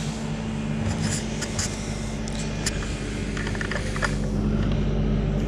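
Skid steer's diesel engine running steadily, a low even hum with a few faint clicks over it.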